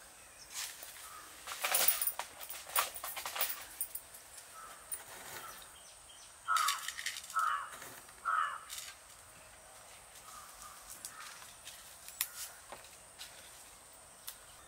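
A crow cawing three times, about a second apart, over light clicks and rustles of hands handling coarse salt and dried chillies.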